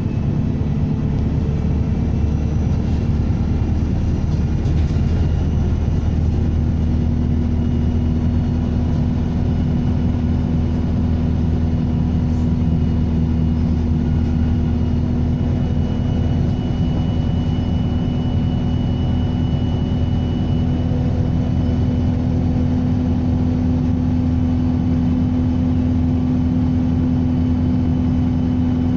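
Diesel engine of a Stagecoach bus running steadily with a low hum and a turbocharger whistle. A thin high whistle stands out for several seconds in the middle.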